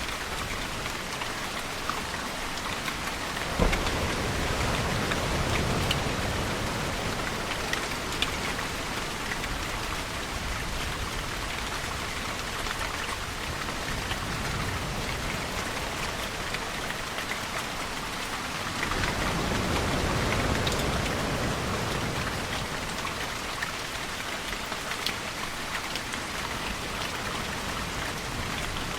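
Steady rain falling, with two low rumbles of thunder. The first comes about four seconds in, right after a sharp crack; the second swells and fades around the middle of the second half.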